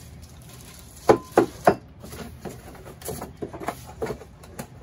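Unpacking a dual monitor stand: three sharp knocks in quick succession about a second in, as the bagged metal pole is laid on a wooden desk. Lighter rustling and bumping of cardboard and plastic packaging follow as parts are taken from the box.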